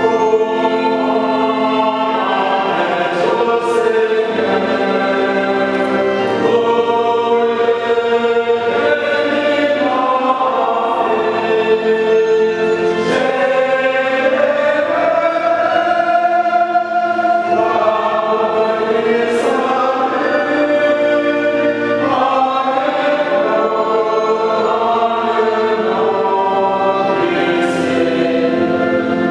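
Church choir singing slowly in long held notes: the responsorial psalm sung after the first reading at Mass.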